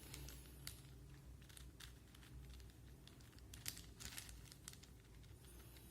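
4x4 Rubik's cube being turned by hand: faint, irregular plastic clicks and rattles as its layers are twisted.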